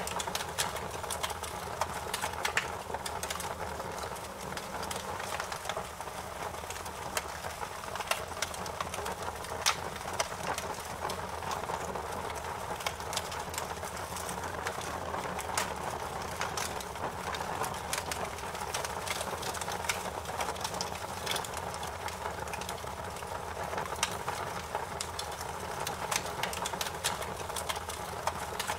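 Wood fire burning in a fireplace: a steady hiss with frequent sharp crackles and pops.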